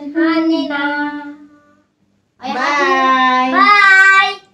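Young children singing: a short phrase, a pause of under a second, then a louder, held phrase with the pitch bending.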